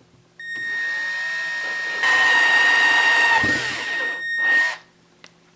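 A handheld electric tool's motor running with a steady high whine for about four seconds, louder in its second half, then switching off.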